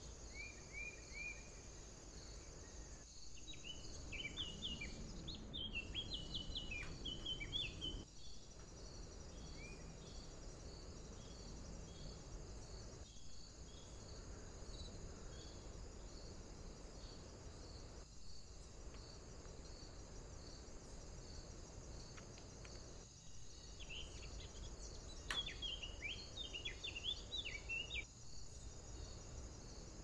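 Songbirds singing quick, chirpy twittering phrases in bursts, briefly at the start, about four seconds in and again near the end, over a steady high-pitched insect-like pulsing and a low background hiss.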